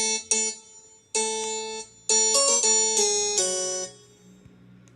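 Yamaha PSR-E453 digital keyboard playing its harpsichord voice: two quick notes, then chords and a short run of notes with a bright, many-overtoned sound, over about four seconds.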